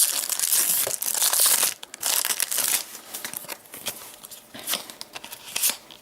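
Trading card pack wrapper being torn open and crinkled, dense and loud for the first couple of seconds, then lighter scattered crinkles.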